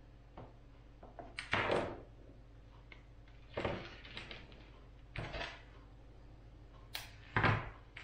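Hands tying fishing line onto a swivel, making about five short rustles and knocks a second or two apart.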